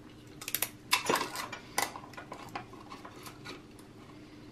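Small hard objects clicking and clattering on a stone countertop as a roll of clear tape is picked up and handled. A few sharp clicks come in the first two seconds, then lighter scattered ticks.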